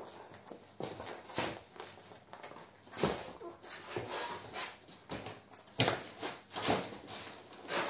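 Irregular footsteps and shoe scuffs on a concrete floor, with knocks and rustling as a soft fabric bag is handled.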